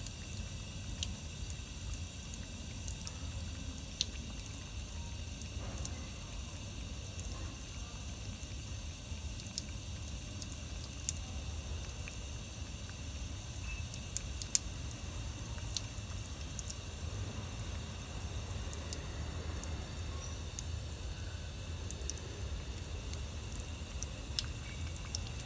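Faint, steady water sound like a trickle from a tap, with scattered small drips and clicks at irregular moments.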